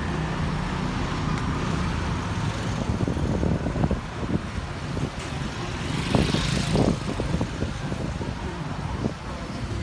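Street traffic noise, a steady rumble of passing vehicles, with a louder swell about six seconds in and a few knocks around it.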